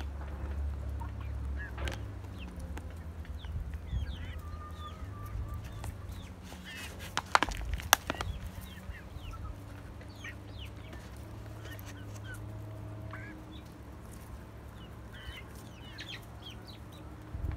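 Chickens clucking and chirping as they feed, with short high calls scattered throughout and a few soft drawn-out notes. About seven to eight seconds in, a quick cluster of sharp knocks, the birds' beaks pecking the hand-held plastic feed cup.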